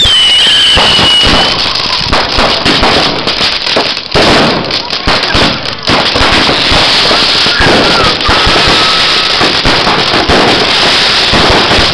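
A fireworks barrage fired at close range: a dense, continuous crackle of loud bangs and pops. A whistling firework glides down in pitch at the start, and another short whistle sounds about two-thirds of the way through.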